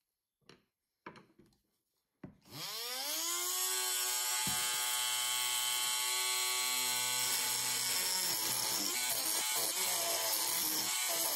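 A few handling clicks, then a Dremel rotary tool fitted with a cutting disc is switched on. Its motor whine climbs quickly in pitch as it spins up, then runs steadily at full speed.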